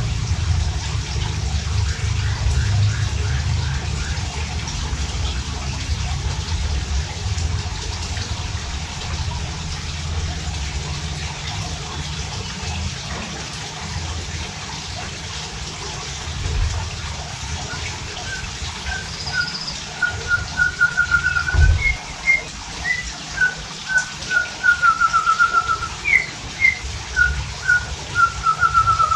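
White-rumped shama (murai batu) singing: bursts of short, repeated whistled notes and quick trills, starting about two-thirds of the way in and growing louder. Under the first part runs a low rumble that fades away.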